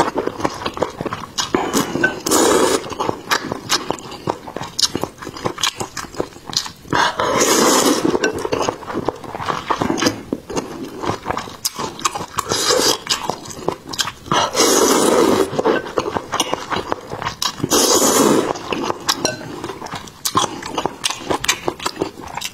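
Close-miked slurping of soupy snail noodles (luosifen), about five long slurps a few seconds apart, with wet chewing clicks between them.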